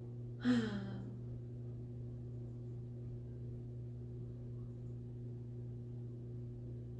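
A woman's short sigh about half a second in, falling in pitch, followed by a steady low hum in the background.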